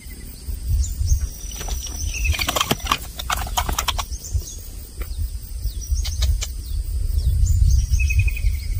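Wild birds chirping outdoors, repeated short falling calls, over a low rumble. A brief burst of clicks and rustling comes about two to four seconds in.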